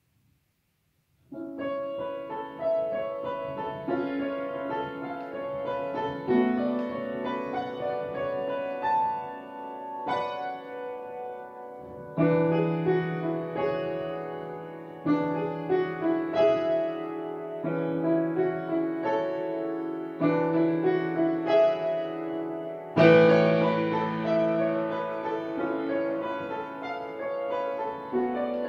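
Upright piano, played solo: after about a second of silence a new short classical piece begins, with a steady repeated bass line under the melody, and it grows louder about two-thirds of the way through.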